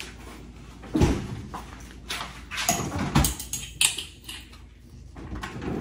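Someone rummaging in an open refrigerator: two dull thuds, about a second in and about three seconds in, with clicks and rustling between them.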